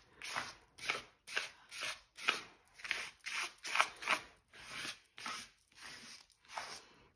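Acrylic paint being scraped across a sheet of paper in short repeated strokes, about two a second.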